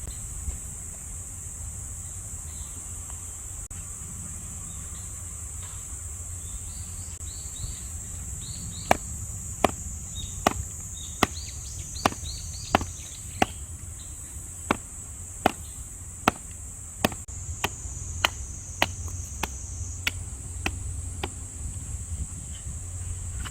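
A knife splitting thick firewood branches: a run of sharp chopping knocks, about one and a half a second, starting about nine seconds in and stopping about twenty-one seconds in, over a steady insect drone.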